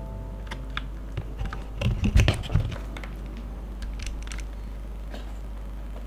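Keystrokes on a Keywalker IFD68 Pro mechanical keyboard fitted with Porcelain Blue switches: scattered single key clacks, and a louder quick run of several deeper-sounding presses about two seconds in.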